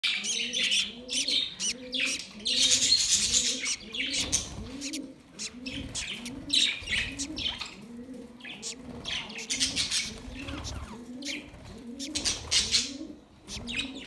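Budgerigars chirping and chattering, with a low, evenly repeated call about twice a second underneath.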